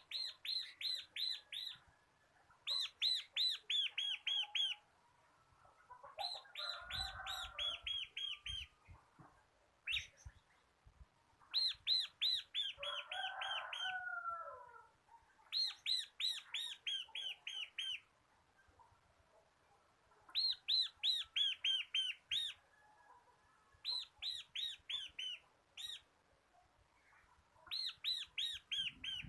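Bar-winged prinia (ciblek) singing its rapid 'ngebren' song: repeated bursts of about ten quick, high, downward-sweeping notes, each burst about two seconds long with short pauses between. Twice a lower, scratchy chattering runs under the song, and a few faint low thumps come about seven seconds in.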